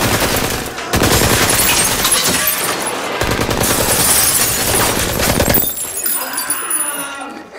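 Sustained rapid gunfire with shattering, dipping briefly under a second in and dying away about five and a half seconds in, leaving a quieter tail.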